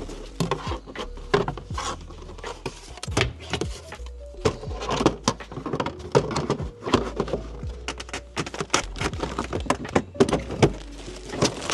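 Irregular knocks and clicks of a cover being handled and fitted back into place over the car battery, with background music underneath.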